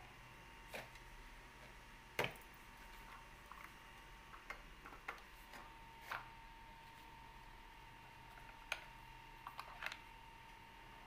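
Irregular clicks and knocks of baby tricycle parts being handled and fitted together by hand, the loudest knock about two seconds in and a quick cluster of clicks near the end. A faint steady hum runs underneath.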